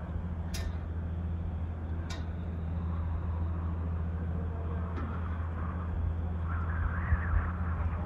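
A steady low droning hum, with irregular low thumps near the end like wind buffeting a microphone, and two sharp clicks early on.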